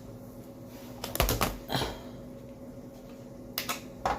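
Cookware and kitchen items being handled: a few short clacks and knocks, the loudest cluster about a second in and two smaller ones near the end, over a faint steady hum.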